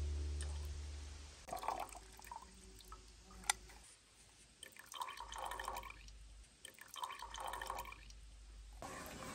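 Chokecherry juice dripping and trickling from a metal utensil into a stainless steel pot, in a few short spells, with one sharp click about three and a half seconds in.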